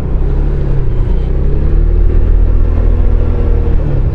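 Kymco Downtown 350i scooter's single-cylinder engine pulling under gentle acceleration, its note rising slowly and then levelling off near the end, over a low rumble.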